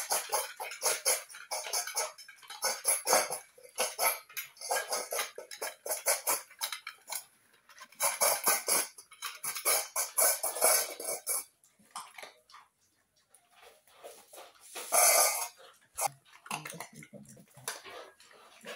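A puppy crunching dry kibble in quick bursts, eating off a tiled floor and from a stainless steel bowl. A short loud burst comes about fifteen seconds in, and the crunching then thins to scattered clicks near the end.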